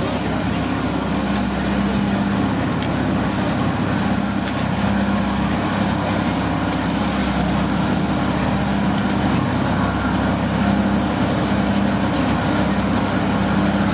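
Steady drone of a running machine: a low hum that comes and goes over an even wash of noise.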